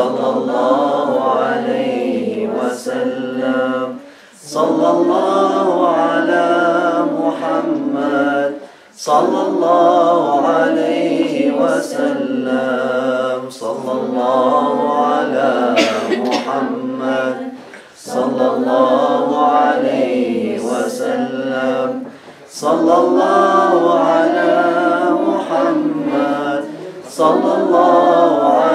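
Small group of men's and women's voices singing an Arabic devotional dhikr chant unaccompanied, in long phrases broken by brief pauses for breath.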